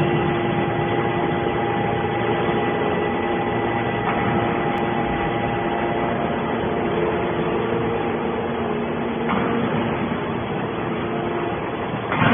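A 200-ton hydraulic scrap metal baler running: a steady mechanical hum with several steady whining tones, which change slightly about four seconds and again about nine seconds in.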